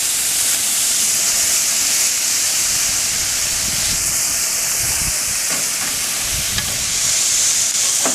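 Pork belly (liempo) sizzling on a barbecue grill, a steady high hiss.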